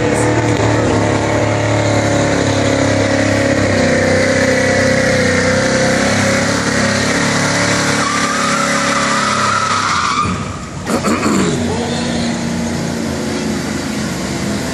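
Pulling pickup truck's engine running hard at full throttle as it drags a weight sled, with tire squeal on wet pavement; about ten seconds in the engine lets off sharply and the sound drops to a lower run.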